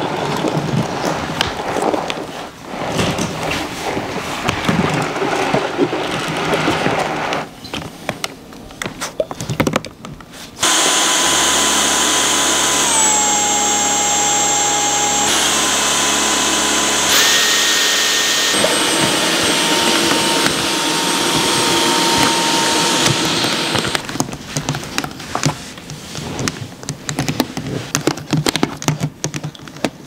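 Dyson V11 cordless stick vacuum running: uneven rushing noise at first, then about a third of the way in a steady, loud motor whine. The whine's pitch sags and climbs back as the motor changes speed, and the sound turns uneven again near the end.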